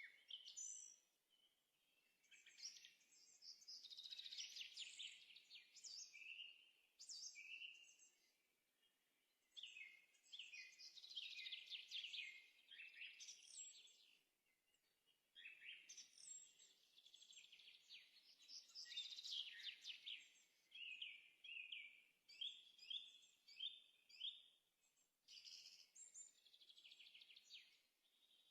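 Faint songbird singing: repeated trilling, warbling phrases a few seconds long with short pauses between them.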